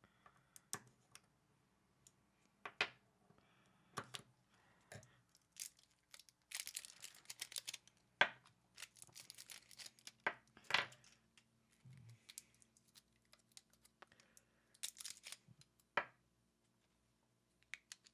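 Plastic shrink wrap being cut with a knife and torn and crinkled off batteries, in several bursts of crackly rustling with scattered small clicks and taps.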